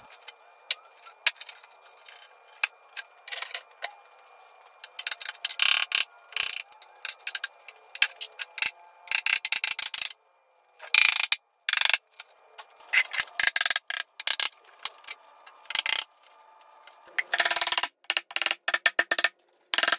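Hand tools working over a cured epoxy slab: bursts of rapid clicking and scraping, several seconds at a time, cutting to dead silence twice around the middle.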